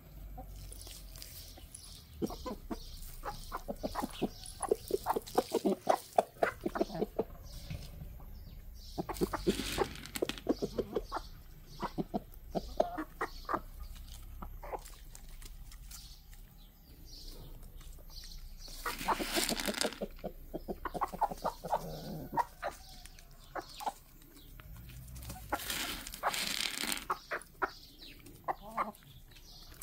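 A flock of domestic chickens, a rooster among hens, clucking in short, quick calls. Three louder noisy bursts of about a second each break in.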